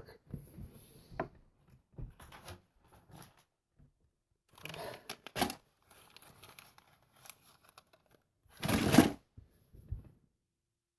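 Fishing-tackle packaging being handled: scattered crinkling and rustling with short bursts of tearing, the loudest about nine seconds in.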